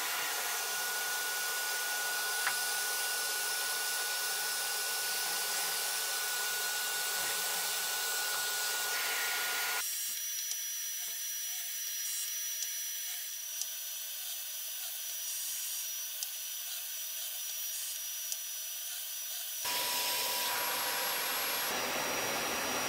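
Shop vacuum running steadily as dust extraction on a Kreg K4 pocket-hole jig: an even hiss with a faint high whine. The sound turns thinner and higher abruptly about ten seconds in and changes back near the end. There are a few light clicks.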